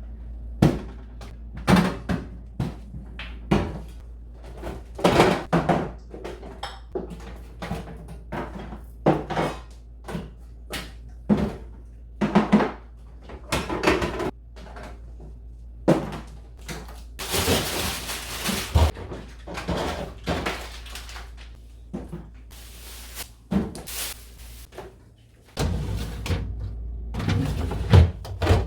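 Repeated knocks, thunks and clatter of food containers and fridge doors and drawers being handled, set down, opened and shut, with a longer rustling noise near the middle, over a steady low hum.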